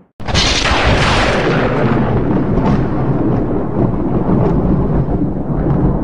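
Thunder: a sudden loud thunderclap about a quarter-second in, its bright crack fading over a second or two into a long, low rolling rumble with a few fainter crackles.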